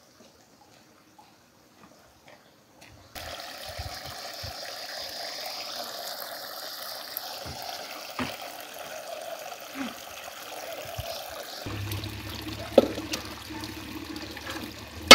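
After about three seconds of quiet, spring water trickles and splashes steadily as it spills from a stone basin into a pool. Near the end the water sound deepens as the flow runs from spouts into a stone channel, with a single sharp knock.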